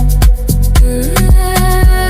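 Afrobeat-style background music with a steady drum beat, deep bass and a held melodic line.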